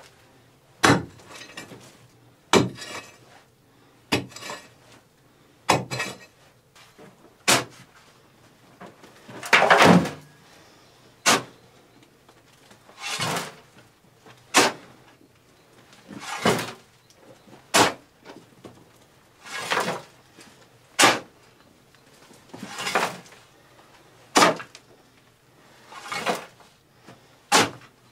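A shovel scraping into stony earth and its loads tipped into a wheelbarrow, in a steady rhythm of about one stroke every second and a half.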